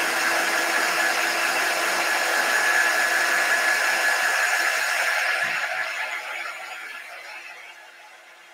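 Handheld craft heat tool (embossing heat gun) blowing hot air steadily with a fan whine as it dries freshly applied chalk paste; it dies away about five to seven seconds in.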